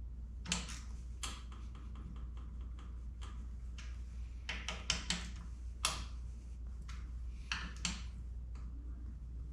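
Irregular runs of small metallic clicks and taps from hand tools as the handlebar clamp bolts are tightened, over a steady low hum.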